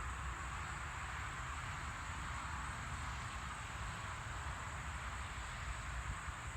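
Steady chorus of insects, an even hiss with a thin high band on top, over a low, fluttering rumble of wind on the microphone.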